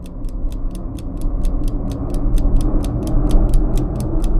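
A steady mechanical ticking, about five ticks a second, over a low rumbling drone that swells louder: a tension-building sound bed.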